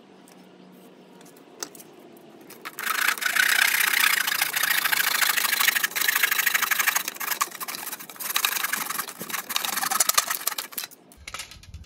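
Hand saw cutting through a pine board, a fast, steady rasp of saw strokes that starts a few seconds in and runs for about eight seconds before stopping.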